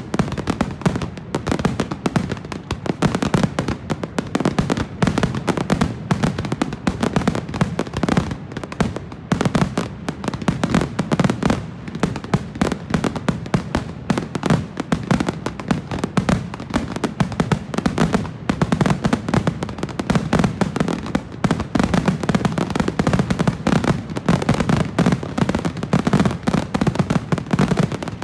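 Aerial fireworks display in a heavy barrage: a dense, unbroken string of shells firing and bursting, many reports a second.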